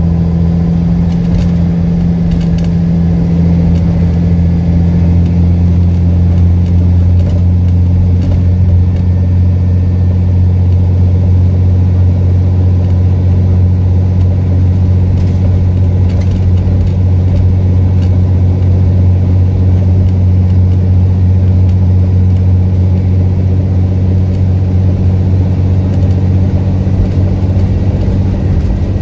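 Diesel engine of an Alexander Dennis Enviro400 double-decker bus, heard inside the passenger saloon, running at a steady speed with a loud, deep drone that holds its pitch: the bus has a blown exhaust.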